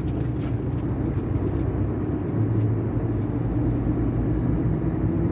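Engine of a loaded truck running steadily while it drives off, heard from inside the cab as a low, even hum that grows a little louder about two seconds in.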